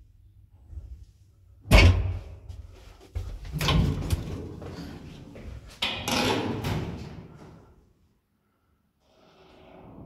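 Lift doors on arrival of a Zremb passenger lift: a loud metallic bang about two seconds in as the doors open, then knocks and rattling as the manual swing landing door is unlatched and pushed open. The sounds die away a little before the end.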